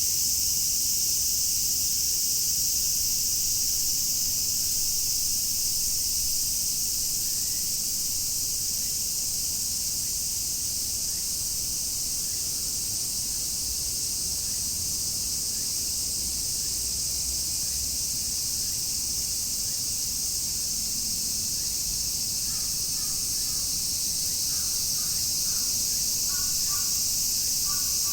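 A chorus of cicadas singing: a dense, steady, high-pitched drone. Near the end a bird chirps faintly a few times.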